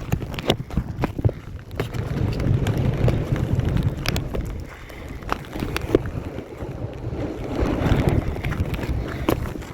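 Wind rumbling and buffeting against the microphone on open water, with scattered short knocks and splashes from a kayak and its paddle.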